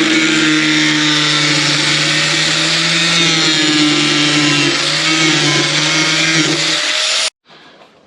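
Handheld electric power tool running steadily while cutting into a motorcycle saddlebag, with a motor hum under a dense hiss. It cuts off abruptly about seven seconds in.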